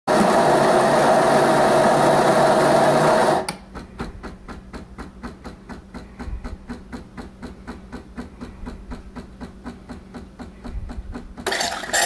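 Mcilpoog WS-203 super-automatic espresso machine frothing milk for a cappuccino: a loud steady hiss over a low hum, which drops after about three seconds to quiet, even clicking about four or five times a second, then the loud hiss starts again near the end.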